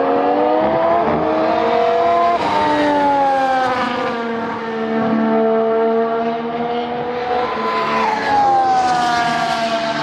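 2019 Formula 1 car's 1.6-litre turbo-hybrid V6 engine at race speed, its note climbing under acceleration and dropping sharply at an upshift about two and a half seconds in, then sagging and climbing again to a second upshift about eight seconds in.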